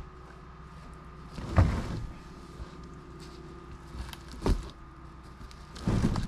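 Heavy log being levered and rolled by hand: three thumps and scrapes, the loudest about one and a half seconds in, over a steady low hum.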